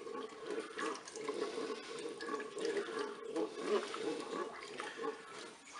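Wooden spoon stirring a thick chocolate rice-pudding mixture of milk and rice in a multicooker's inner pot, an irregular wet swishing and sloshing as the mixture comes to the boil.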